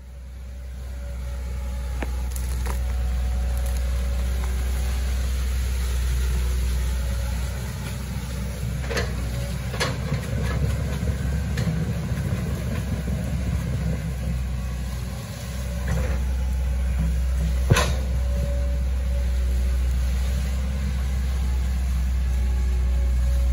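Hitachi ZX110 excavator's diesel engine running steadily, with a few sharp knocks, one louder than the rest about three quarters of the way through.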